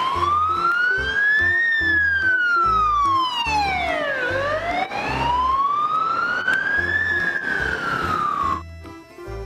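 Electronic siren of a toy PMI ambulance wailing, its pitch sliding slowly up and down in long sweeps, twice over, then cutting off near the end. Background music with a steady beat runs underneath.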